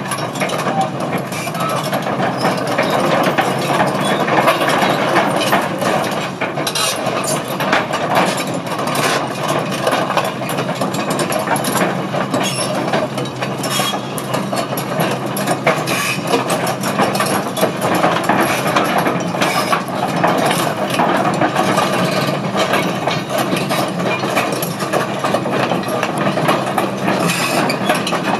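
2013 Doosan DX300LC-3 excavator's diesel engine running steadily as the machine travels on its steel crawler tracks, with frequent clanking and clicking from the tracks.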